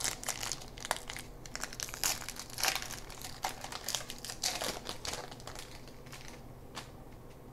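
Crinkling and tearing of a trading-card pack's foil wrapper as it is opened, with irregular crackles that die down about six seconds in.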